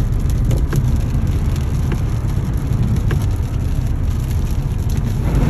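Car driving, heard from inside the cabin: a steady low road and engine rumble, with scattered sharp taps of raindrops hitting the car.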